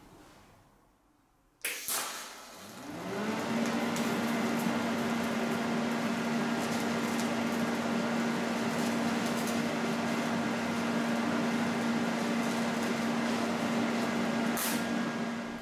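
TIG welder at 95 A DC making a spot weld: a sharp crackle as the arc strikes about a second and a half in, then a steady arc hiss with a hum that rises in pitch over about a second and then holds. The arc cuts off with a click near the end.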